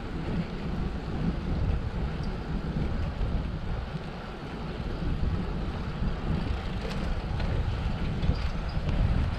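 Wind buffeting the microphone of a moving bicycle, a steady low rumble.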